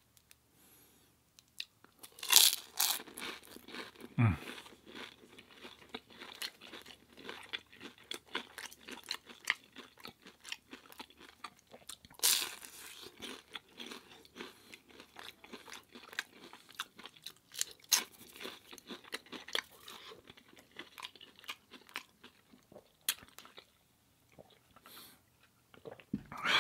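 A person eating crunchy food up close. There are loud crunching bites about two seconds in and again about twelve seconds in, with steady chewing and crackling between them.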